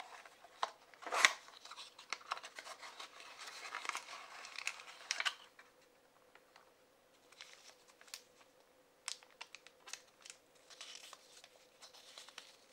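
A small cardboard box being opened by hand: a sharp snap of the flap about a second in, then a few seconds of crinkling and rustling as a plastic-bagged figure and a folded paper leaflet are drawn out. After a short lull come lighter paper taps and rustles as the leaflet is unfolded.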